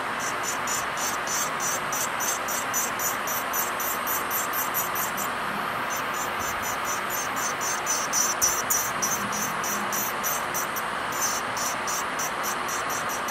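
Bandi electric nail drill with a fine cylindrical base bit grinding base gel off a natural fingernail: a steady high whirring hiss with a fast, regular pulse in it, about four to five a second.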